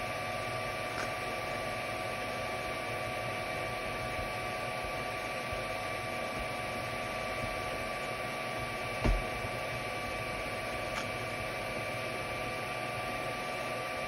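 FDM 3D printer's cooling fans running, a steady whirr with a constant high whine. A single short knock about nine seconds in.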